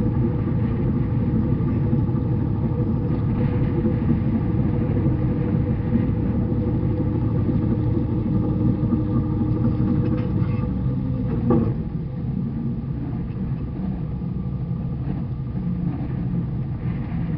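A sailing barge's inboard engine running steadily under way, a low hum with a rumble. About two-thirds of the way through there is a short knock, and the engine note then drops and quietens as it is throttled back.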